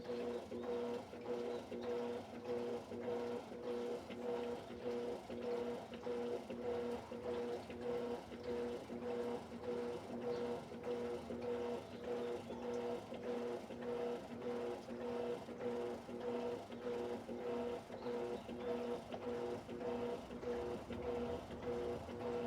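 Electrolux LED14 top-loading washing machine agitating a load of clothes on the heavy-dirty cycle at medium water level, turbo off: a steady motor hum with an even rhythmic beat about twice a second.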